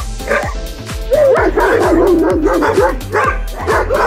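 Background music with a steady beat, over a dog whining and yipping in excitement. A long wavering whine starts about a second in and lasts some two seconds.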